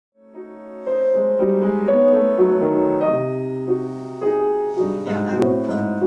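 Grand piano playing a classical passage in chords over a bass line, soft at first and louder from about a second in.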